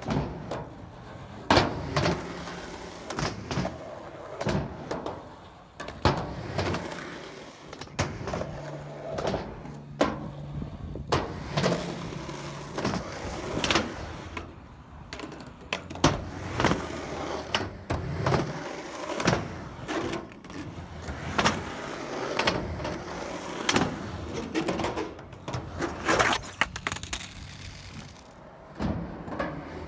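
Skateboard wheels rolling on concrete, with many sharp clacks and slams of the board striking the ground and ramp, one after another.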